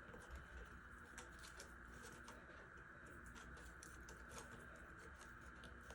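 Near silence: room tone with a faint steady hiss and a few scattered faint small clicks.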